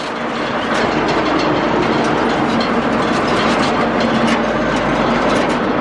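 Recovery tow truck on the move: steady road and wind noise with constant rattling and clanking of loose metal.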